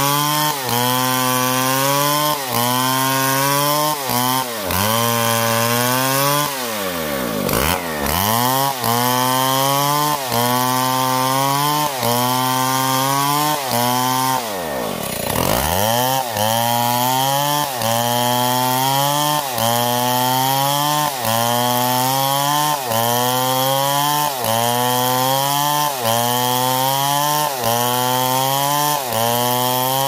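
Two-stroke chainsaw ripping lengthwise along a log, the engine pitch rising and dipping about once a second as the saw works through the cut. Twice, about 7 s and 15 s in, the engine slows sharply and revs back up.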